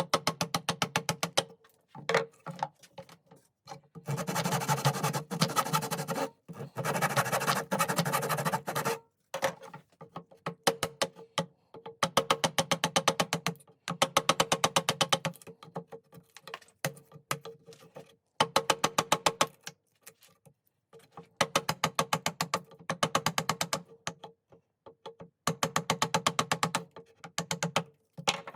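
Repeated strokes of a hand tool scraping a wooden hatchet handle. Each stroke is a rapid string of sharp clicks lasting a second or two, with a denser rasping stretch from about four to nine seconds in.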